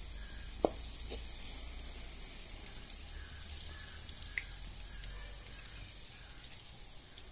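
Sliced onions, fried to the right stage, sizzling steadily in hot oil in a large pan while a slotted ladle lifts them out to drain. A sharp click comes about half a second in, and a lighter one just after.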